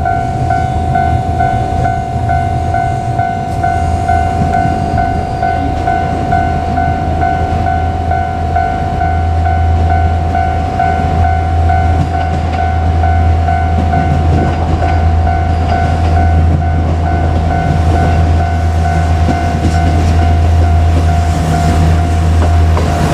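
Japanese railway level crossing alarm ringing in a steady repeat, over the low drone of a JR Kyushu KiHa 200 diesel railcar's engine. The drone grows louder from about nine seconds in, and more noise builds near the end.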